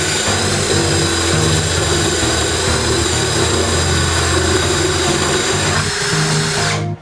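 A power tool runs steadily with a hiss and several high whining tones, over background music with a stepping bass line. The tool cuts off just before the end, leaving the music alone.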